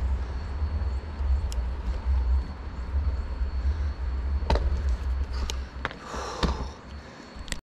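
Wind rumbling on an action camera's unprotected microphone while cycling, with a few sharp clicks in the second half. The rumble eases near the end.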